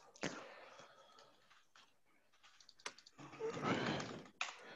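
Faint computer keyboard typing and clicks, with a soft noisy sound lasting about a second just past the three-second mark.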